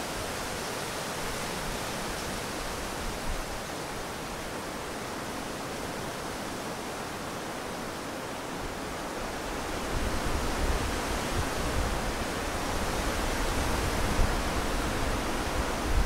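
Wind rushing through leafy tree branches, a steady rustle of leaves that strengthens into louder gusts with low rumbles about ten seconds in.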